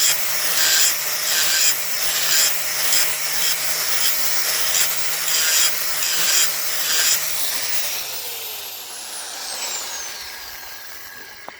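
Angle grinder grinding the bevel of a steel splitting axe, the grinding hiss swelling and fading about twice a second as the disc is swept across the edge. About seven seconds in the grinding stops and the grinder is switched off, its whine falling in pitch as it spins down.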